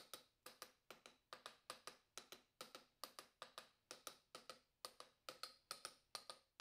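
Light, quick hammer taps on steel mold parts, two or three a second and often in quick pairs or threes, each with a short metallic ring.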